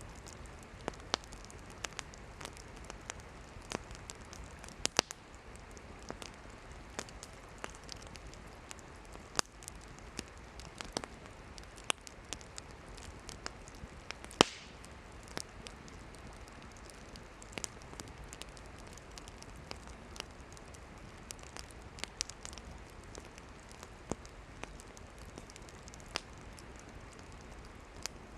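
Wood campfire burning: firewood crackling and popping at irregular intervals over a steady low hiss, with one sharp, louder pop about halfway through.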